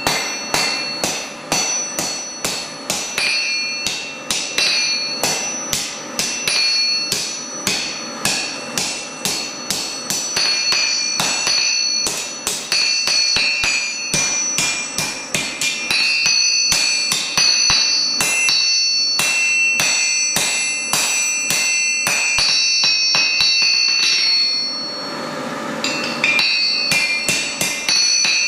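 Blacksmith's hand hammer striking a red-hot steel bar on an anvil, about two to three blows a second, each blow leaving the anvil ringing. The blows stop briefly near the end, leaving a soft hiss, then start again.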